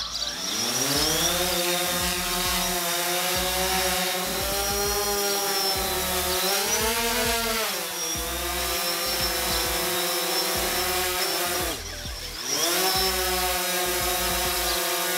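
DJI Phantom 4 quadcopter's propeller motors spinning up for takeoff with a rising whine, then a steady hum as it hovers, holding its height on its barometer. The pitch swells and settles a few times, and about twelve seconds in it drops away briefly and climbs back.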